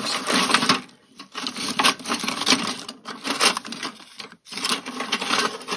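Small hand tools clattering and clinking as they are rummaged through and picked out of a toolbox, in several bursts of rattling with short pauses.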